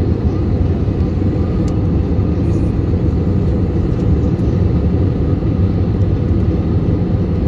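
Steady cabin noise of a jet airliner in cruise, heard from a window seat over the wing engine: an even low rumble of jet engine and rushing air.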